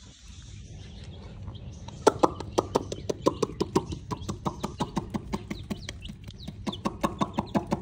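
Chickens calling in a quick run of short, falling calls, about five a second, starting about two seconds in.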